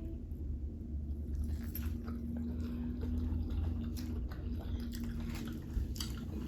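People chewing and biting into hot-sauce-dipped chicken: scattered small, wet mouth clicks and crunches.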